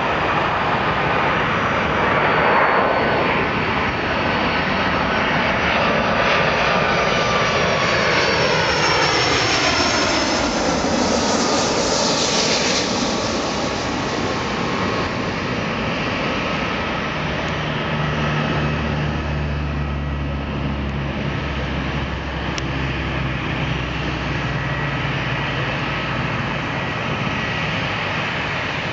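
Boeing 757-200 jet airliner on final approach passing overhead, its engine whine gliding down in pitch as it goes by, loudest as it passes closest. The engines then run on steadier and lower as the airliner moves away toward the runway.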